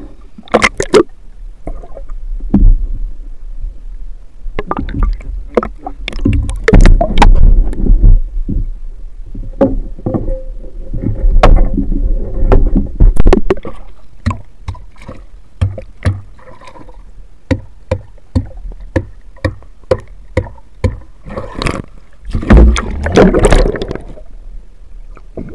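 Water moving around a camera as a spearfisherman surfaces and swims underwater: sloshing and splashing surges, a low rumble, and many sharp clicks and knocks, several a second in stretches.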